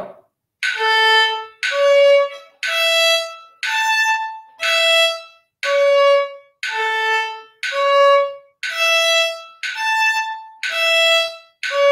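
Solo violin playing a slow arpeggio finger exercise at 60 BPM: separate bowed notes, about one a second, each fading before the next, stepping up and down through the arpeggio.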